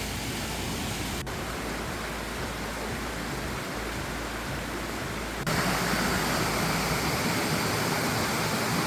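Steady rush of water flowing in a rocky mountain stream. The level steps down abruptly about a second in and jumps up louder about five and a half seconds in.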